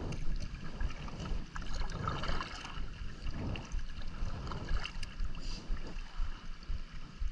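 Kayak paddle dipping and splashing through the water in irregular strokes, with water sloshing against the plastic hull. Wind rumbles on the microphone underneath.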